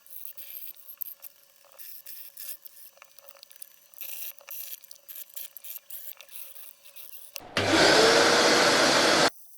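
Cloth or hand rubbing and wiping over a shelf surface: light scattered scrubbing strokes. About three-quarters of the way through, a loud steady rushing noise cuts in for nearly two seconds, then stops abruptly.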